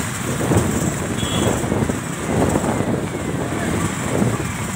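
Moving vehicle's engine and road noise, with wind buffeting the microphone.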